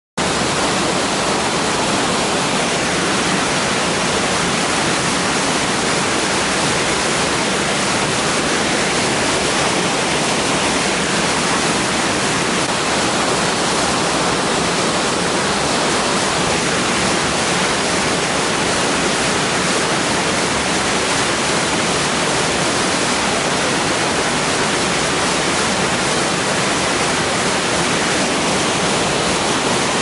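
Waterfall pouring down into its pool: a steady, unbroken rush of falling water.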